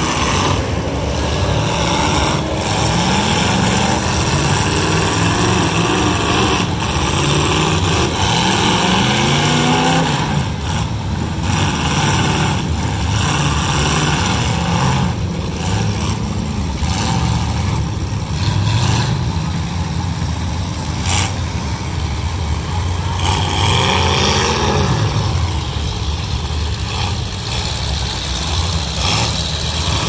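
Several demolition derby cars' engines revving hard, pitch rising and falling again and again as they push and ram each other, with a few sharp bangs of metal hitting metal.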